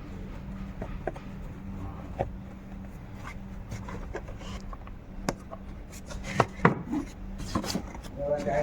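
Scattered sharp clicks and knocks of parts and tools being handled during work on the car, over a steady low hum, with a few louder knocks past the middle.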